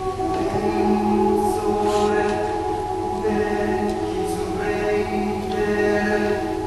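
Choir singing slow, long-held chords; a lower voice part comes in about half a second in.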